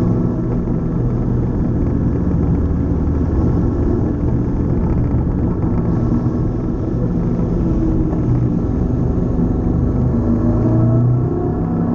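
Honda CTX700's 670 cc parallel-twin engine, restricted to 48 PS, running steadily under way and heard from on board; its pitch rises as it pulls harder about eight seconds in and again near the end.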